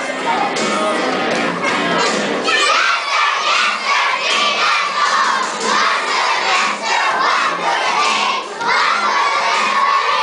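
A large group of young children shouting together, loud throughout, with many high voices overlapping.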